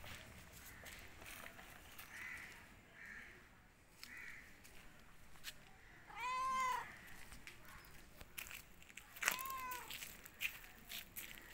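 Domestic cat meowing twice: a longer meow about six seconds in and a shorter one about three seconds later, each rising and then falling in pitch.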